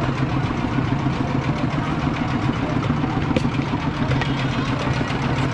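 A vehicle engine idling steadily with an even, rapid pulsing.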